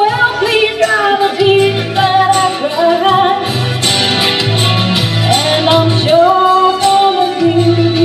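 A woman singing into a microphone through a PA, with long held notes that bend in pitch, over a recorded backing track with a bass line.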